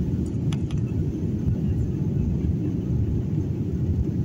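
Jet airliner at takeoff heard from inside the cabin: a steady low rumble of the engines at full power as the plane lifts off the runway and climbs.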